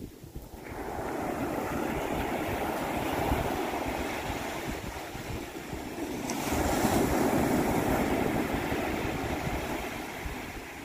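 Ocean surf: waves breaking and washing up a sandy beach. The wash swells in about a second in, eases, then comes louder again around six to eight seconds in before fading.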